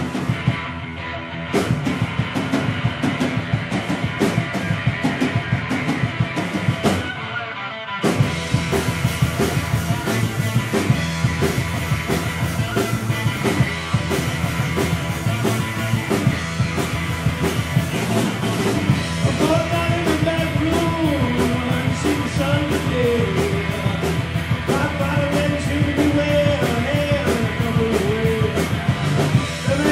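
Live rock band playing loud: distorted electric guitar, bass guitar and drum kit. The sound drops back briefly about eight seconds in, then the full band comes back in with steady, driving drums and cymbals.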